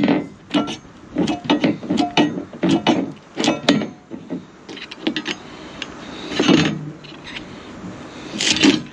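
A hand tool working a bolt in a metal railing stanchion base. Short metallic clicks and scrapes come about two or three a second at first, then more sparsely, with two louder scraping rasps, one about halfway through and one near the end. The bolt resists coming out.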